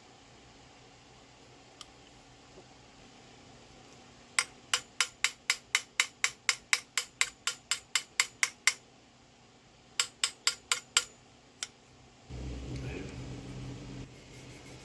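Quick, sharp taps of a small hammer on a brass trombone bell held on a mandrel, working out dents: a run of about eighteen taps at roughly four a second, then, after a pause, five more and a single tap. Near the end comes a couple of seconds of low rubbing and handling noise.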